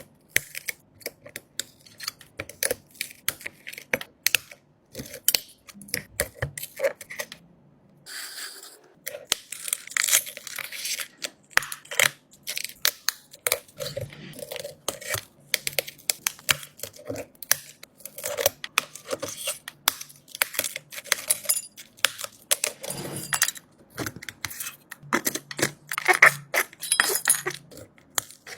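Rapid, irregular small clicks, taps and crunching scrapes of hand tools working on the cracked glass back of an iPhone 12 Pro Max.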